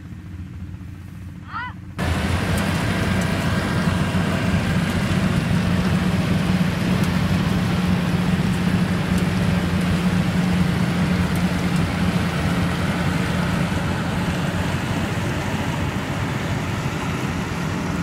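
Yanmar YH850 combine harvester running close by as it cuts rice: a steady, dense diesel drone with the clatter and hiss of its cutting and threshing machinery. It starts abruptly about two seconds in, after faint field sound and a brief voice.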